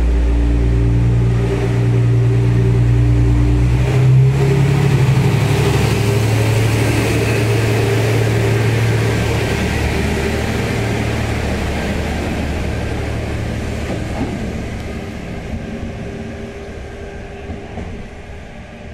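MRT300-series diesel railcar departing: its diesel engine runs steadily at first, then revs up about four seconds in as the railcar pulls away, and the engine sound fades steadily as it draws off into the distance.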